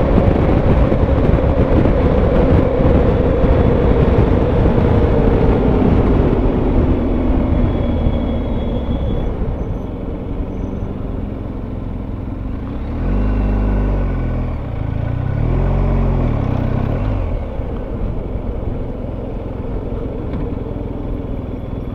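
Motorcycle engine running while riding, with rushing wind noise; the engine note slowly falls as the bike slows, and about 13 and 16 seconds in there are two short louder swells of engine revving.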